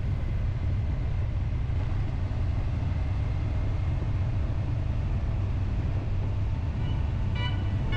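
Triumph Tiger 800 XCA's three-cylinder engine running steadily at cruising speed, a low drone under a steady rush of road and wind noise. Faint tones come in near the end.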